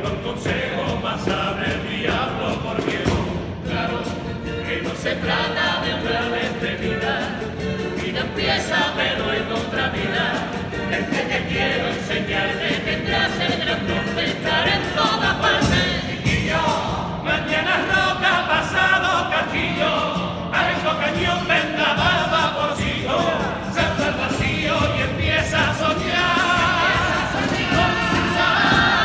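All-male carnival comparsa chorus singing a popurrí together at full voice, with guitar accompaniment.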